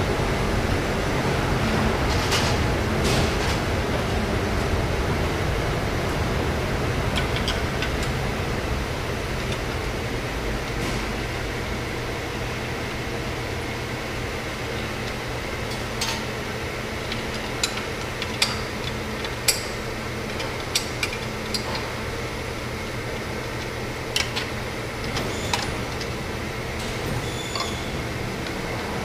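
Steady hum of factory machinery, with scattered sharp clicks and knocks that come more often in the second half.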